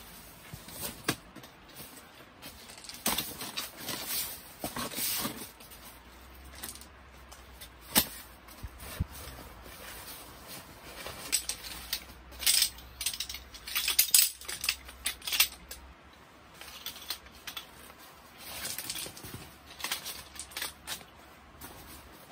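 Irregular clicks and rustling from handling a Helinox folding camp chair: its aluminium poles knocking and clicking together, its fabric rustling, and pebbles shifting underneath, with one sharp click about eight seconds in.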